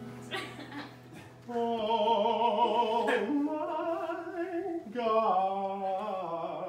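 A man singing long, held notes with heavy vibrato in a mock-operatic style, in three phrases beginning about a second and a half in. An acoustic guitar chord is still ringing out underneath at the start.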